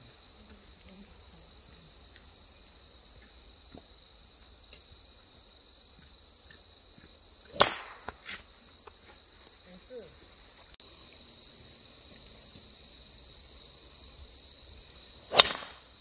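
Two sharp cracks of a golf club striking a ball off the tee, one about seven and a half seconds in and one near the end, over a steady high-pitched chorus of night insects.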